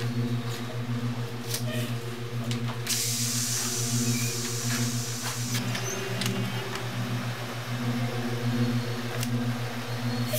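City bus engine idling at a stop with a steady, evenly pulsing hum; a hiss of compressed air from the bus starts about three seconds in and lasts a couple of seconds. The engine note shifts briefly about six seconds in.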